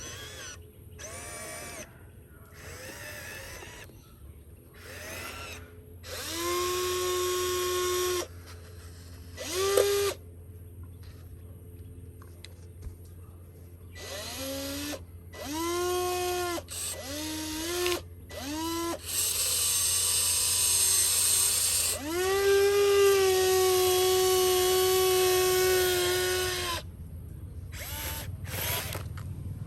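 Small electric motor whirring in a series of stop-start runs, each rising in pitch as it spins up. The runs are short at first, then one long run of about eight seconds in the latter part.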